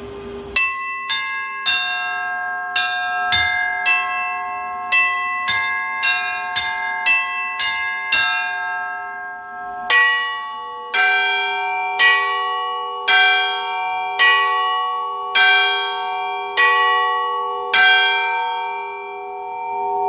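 Cast bells struck one at a time at different pitches, tried against each other to make up a scale. About fourteen quick strikes come in the first eight seconds, then, after a short pause, eight slower strikes about a second apart, each left to ring on.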